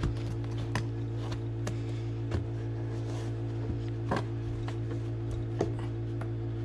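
Plastic interior trim of a car door sill being pried and pulled at by hand: scattered light clicks and taps as the trim and its clips shift. A steady low hum runs underneath.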